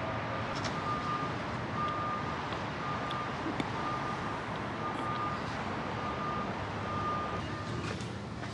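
A truck's reversing alarm beeping at one steady pitch, about once a second, over a steady background rumble. The beeping stops shortly before the end.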